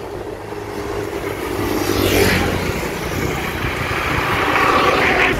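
Road traffic passing close: motorbikes and a car going by on a paved road, a steady low engine hum with a swell of engine and tyre noise about two seconds in and another building near the end as a car approaches.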